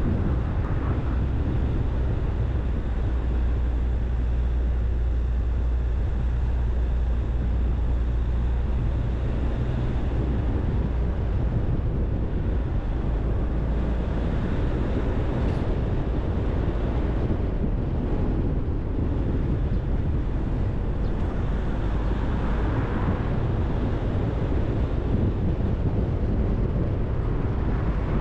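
A car being driven, heard as a steady low rumble of engine and road noise, with some wind on the microphone.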